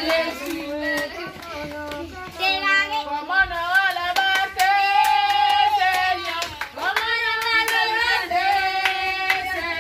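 A group of voices, children's among them, singing a song together with hand clapping along. The notes are held and slide between pitches, with short breaks between phrases.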